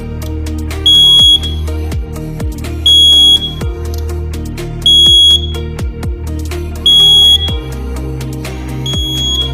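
Fire alarm control panel's buzzer beeping: a high-pitched beep about half a second long every two seconds, five times, the last one fainter. Music with a steady low beat plays under it.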